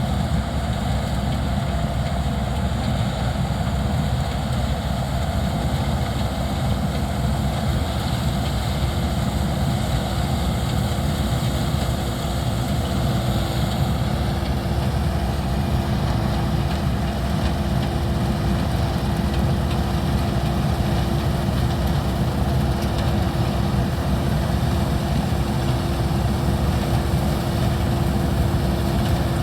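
Laverda Fiatagri 3790 combine harvester running steadily with a heavy, even engine drone; a steady hum grows stronger about halfway through.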